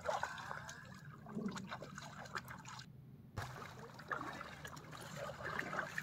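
Faint water sloshing and trickling from a person swimming in a calm river. The sound cuts out briefly about three seconds in.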